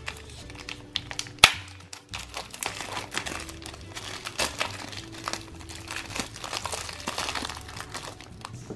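Clear plastic wrapping crinkling and crackling as hands pull it off a plastic candy toilet, with a single sharp snap about a second and a half in.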